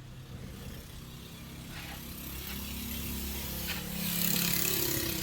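Air compressor running with a steady low hum, while compressed air hisses through a blow nozzle, loudest about four seconds in.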